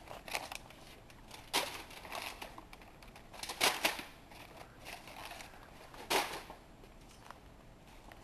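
Packaged goods being handled off a store shelf and a shopping cart moving, heard as a few scattered short knocks and rustles of packaging over faint store background.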